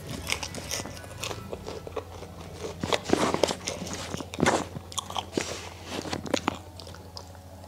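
Close-up crunchy chewing and biting of fried food, irregular crunches that come loudest in clusters about three and four and a half seconds in.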